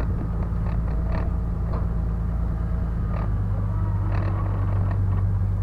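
A vehicle's engine running with a steady low rumble, with scattered creaks and rattles from the vehicle's body.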